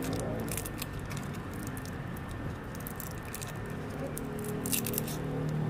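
Foil lollipop wrapper crinkling as fingers peel it off the candy: scattered crisp crackles, a cluster in the first second and another near the end, over a low hum.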